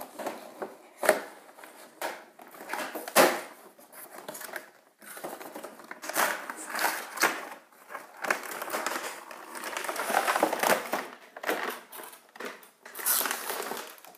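A cardboard toy box being opened and its clear plastic tray slid out: irregular rustling, scraping and crinkling of cardboard and plastic packaging, with a few sharp clicks.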